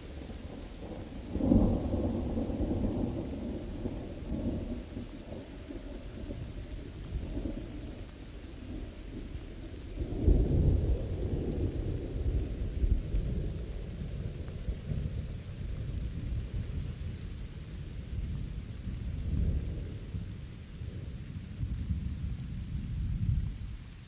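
Thunderstorm with steady rain hissing. A deep roll of thunder begins about a second and a half in, and a louder one about ten seconds in. The rumbling rolls on with smaller swells and dies away near the end.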